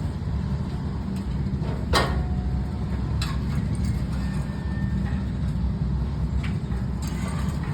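A machine running with a steady low hum. There is a sharp knock about two seconds in and a lighter one about a second later.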